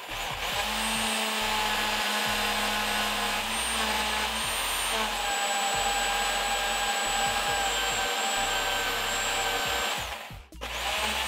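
Electric drill running steadily, spinning a metal vape mod tube while a rag with polishing compound is pressed against it to buff the filed surface. The drill stops briefly about ten seconds in and then starts again.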